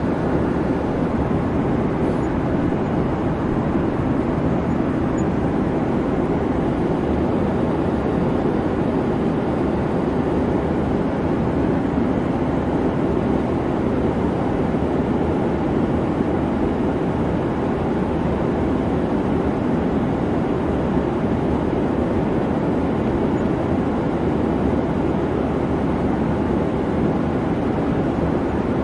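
Boeing 737 in flight: a steady, unchanging rumble of jet engine and airflow noise.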